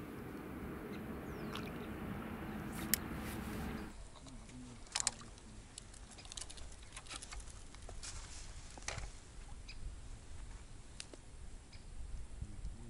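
A steady rushing outdoor noise that changes abruptly about four seconds in to a quieter background with scattered small clicks and rustles of fishing tackle being handled at the bank.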